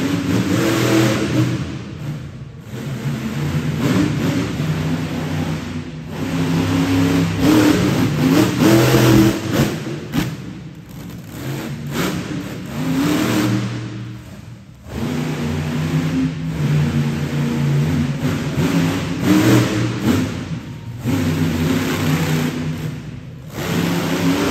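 Monster truck engine revving hard in repeated surges, each climbing in pitch and then dropping off as the throttle is lifted, about five or six times.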